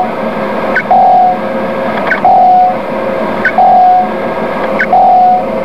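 Electronic sonar-style pings over a steady hiss: a short higher click and then a steady mid-pitched tone of about half a second that fades out, repeating evenly about every second and a third, four times.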